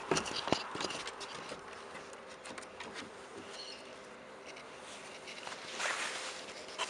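Handling noise from a handheld camera being swung about: scattered knocks and rustles, busiest in the first second and again about six seconds in, over a faint steady hum.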